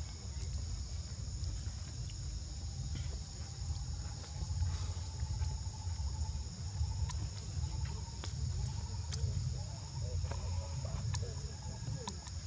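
Steady high-pitched insect drone, two unbroken high tones, over a constant low rumble, with a faint wavering call and a few light clicks in the second half.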